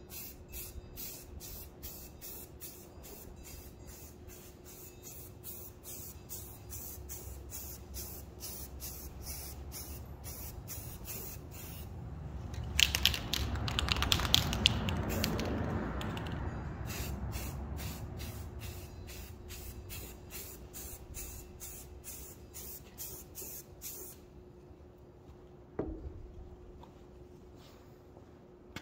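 Primer being sprayed onto a motor housing. Regular sharp clicks come about twice a second, and about halfway through a louder spray hiss starts, holds for a few seconds and slowly fades.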